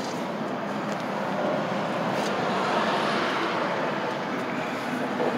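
Highway traffic going by, a steady road noise that swells around the middle as a vehicle passes.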